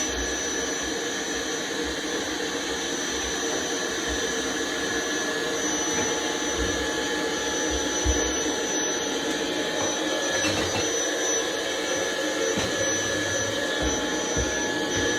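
Steady whirring of a small motor, with a thin high whine held over it.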